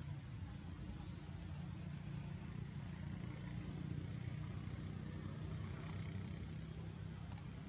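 Steady low rumble of engine traffic.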